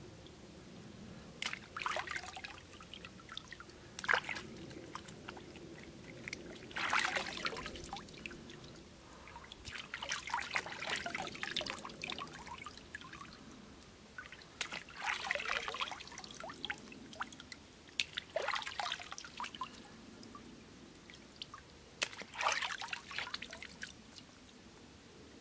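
Water splashing and dripping as a spongy mushroom is dipped and squeezed out in a stone water trough. It comes in short bursts every two to four seconds, over a faint steady trickle.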